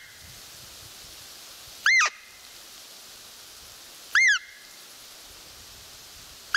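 Hand-blown roe deer call sounding short, squeaky peeps about two seconds apart, each rising and then falling in pitch, with the last one starting right at the end. The peeps imitate a doe in the rut to draw in a roe buck.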